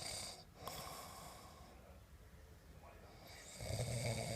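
A sleeping person snoring. One rasping snore with a low buzz ends about half a second in, and after a quieter breath the next snore starts about three and a half seconds in.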